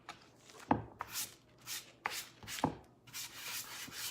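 Adhesive silk-screen transfer being rubbed and smoothed down onto a wooden board to press out bubbles: a series of short rubbing strokes, about two a second, running into a longer stretch of rubbing near the end.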